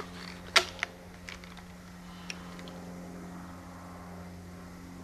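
A few short sharp clicks and taps as a Siege crossbow is handled and raised to the shoulder, the loudest about half a second in, then only a steady low hum.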